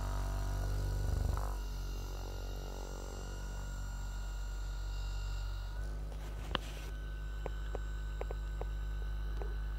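Sharper Image compact percussion massage gun running with a steady low drone. Its tone shifts about six seconds in, with one sharp click soon after and scattered faint ticks near the end.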